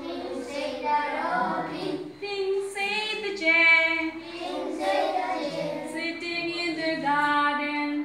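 A class of schoolchildren singing a song together, with a woman's voice singing along.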